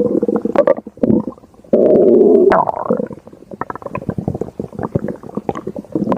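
Stomach growling and gurgling: a long, loud gurgle about two seconds in, then a run of quick bubbling pops.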